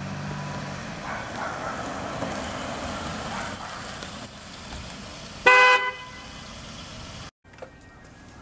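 A minivan's engine running as it pulls up at the curb, then one short blast of its car horn about five and a half seconds in, a honk signalling arrival for a pickup.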